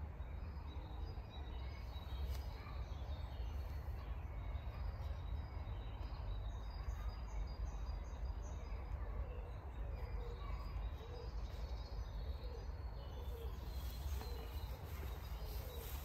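Outdoor ambience of birds calling over a steady low rumble: a quick run of short high chirps about seven seconds in, and low repeated calls through the second half.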